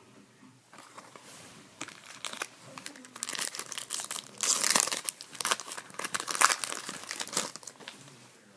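A trading-card pack's foil wrapper crinkling and tearing as it is opened, with the heaviest crackling in the middle few seconds.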